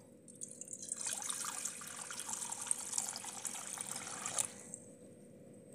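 Water poured from a steel pot into a metal karahi, a steady splashing pour that starts about half a second in and stops about three-quarters of the way through.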